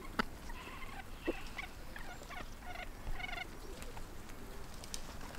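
A flock of chickens clucking while pecking at grain, with several short trilled calls spread through the middle and a few sharp clicks.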